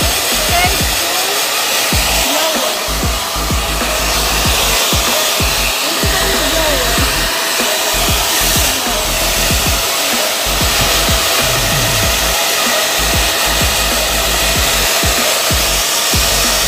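Handheld hair dryer blowing steadily, with uneven low rumbling under the even rush of air.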